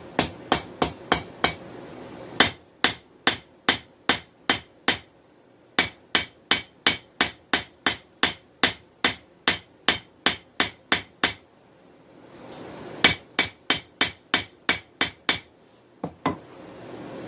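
Hand hammer forging hot 416 stainless steel on an anvil, about three ringing blows a second in runs of several to a dozen-plus strikes with short pauses between runs, and one last blow near the end. A low, steady rushing noise fills some of the pauses.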